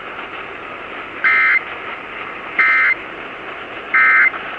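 Emergency Alert System end-of-message code: three short bursts of screechy SAME data tones, about 1.4 s apart, the signal that closes the alert. Heard over AM radio hiss.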